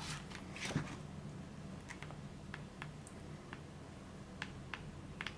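Pages of a paperback book being turned by hand: soft paper swishes in the first second, then scattered light clicks and flicks of page edges.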